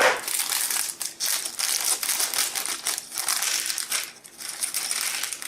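Plastic Lego parts bags crinkling and rustling as they are handled and taken out of the box, in irregular crackly bursts.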